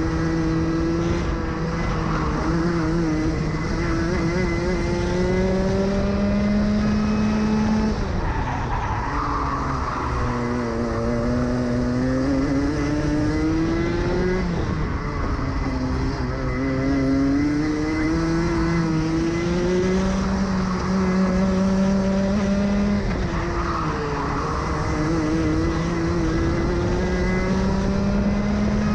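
Rotax Max Senior Evo 125 cc single-cylinder two-stroke kart engine, heard onboard under load. Its pitch climbs steadily along the straights, then drops sharply three times as the throttle comes off for corners, and climbs again each time.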